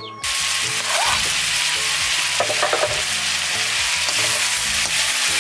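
Food frying in hot oil in a pan: a steady sizzle that starts abruptly just after the start and keeps up evenly.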